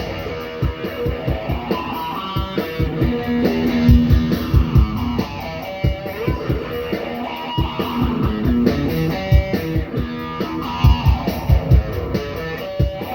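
Instrumental break in a rock-style song: guitar playing over bass and a steady beat, with no singing.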